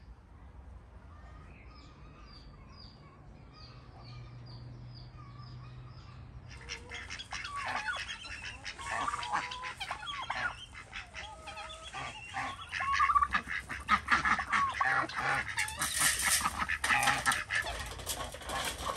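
Farmyard fowl calling: a flock starts up about six seconds in and keeps going, many calls overlapping. Before that there are only faint, quick, high chirps.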